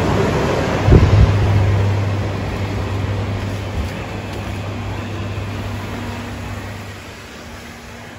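Airport terminal hall ambience: an even rushing noise with a steady low hum, with a sharp bump about a second in, fading gradually toward the end.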